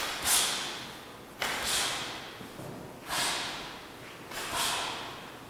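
Four shoulder strikes landing on a training partner, about one every second and a half. Each starts with a sudden contact sound and is followed by a forceful hissing exhale that fades over about a second.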